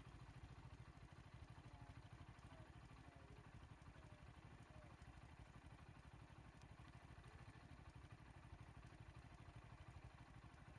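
Faint, steady low rumble of an idling engine, with a few faint high chirps like birds.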